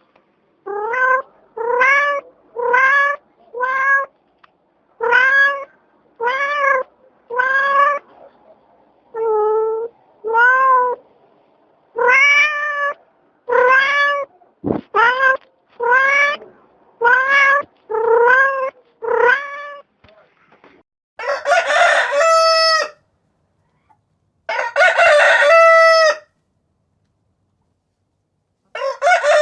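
A cat meowing again and again: about twenty short meows, each rising then falling, over some twenty seconds. Then a rooster crows three times in long, loud crows, the last one running on past the end.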